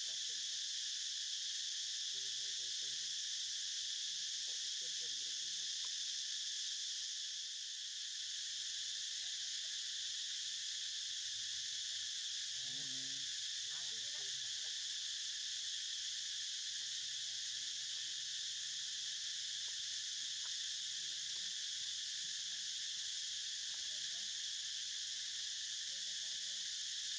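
Steady, high-pitched chorus of insects, with faint short calls now and then, the clearest about halfway through.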